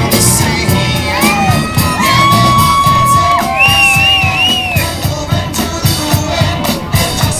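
Loud music with a steady beat and a long held, sliding melody, over crowd noise.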